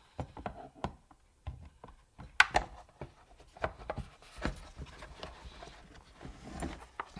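Scattered light clicks and knocks from a disassembled automatic shifter assembly being handled and moved, with one sharper click about two and a half seconds in.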